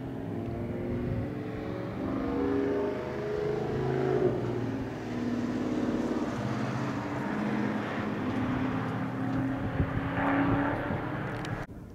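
Muscle car engine accelerating hard, its pitch climbing and dropping back several times as it works through the revs. The sound cuts off abruptly near the end.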